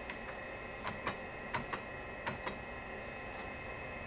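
Faint clicks, mostly in pairs, over the steady hum of a running 286 PC as it loads a DOS game; the clicks stop about two and a half seconds in.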